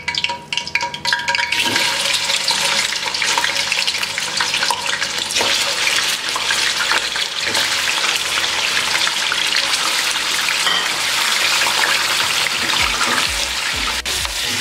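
Raw chicken pieces sizzling loudly in hot oil. The sizzle starts suddenly about a second and a half in as the pieces hit the oil, then runs on evenly. Near the end a spatula stirs the pieces.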